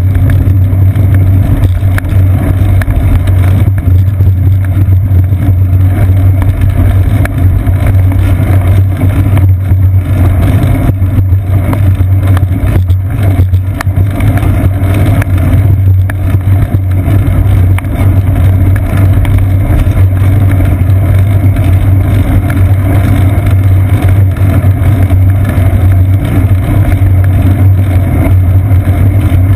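Loud, steady low rumble of wind and road vibration picked up by a seat-post-mounted GoPro Hero 2 in its housing as a bicycle rolls along a paved path.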